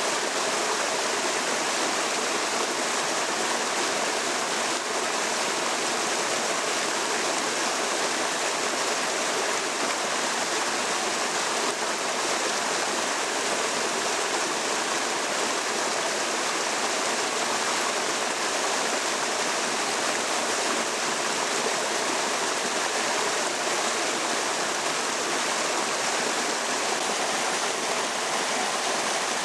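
Steady rush of fast-flowing water, loud and even.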